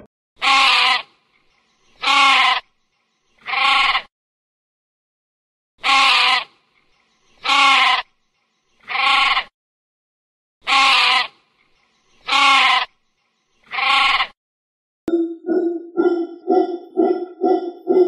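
An animal bleating: nine loud calls of about half a second each, in three groups of three. Near the end a short tune of quick repeated notes with chimes begins.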